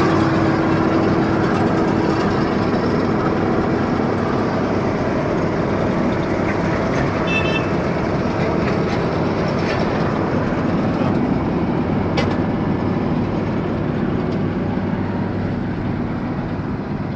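Diesel engine of a tracked asphalt paver running steadily up close: a loud, continuous machine noise with a steady hum that drops away about four seconds in.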